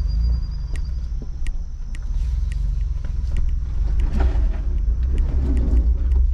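2021 Ford Bronco crawling up a rough dirt trail, a steady low engine and drivetrain rumble heard from inside the open-top cabin, with scattered light knocks and rattles. The rumble grows a little louder about four seconds in as the Bronco labours on a slippery slope where it gets stuck.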